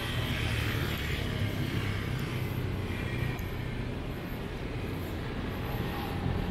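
Road traffic passing: a steady low rumble of engines, with a hiss that rises and falls as vehicles go by.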